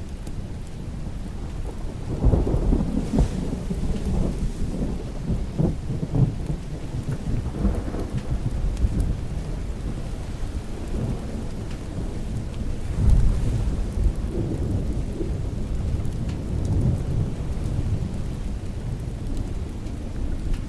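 Steady rain with rolling thunder. The thunder swells about two seconds in and rumbles on, with another strong peal a little past the middle.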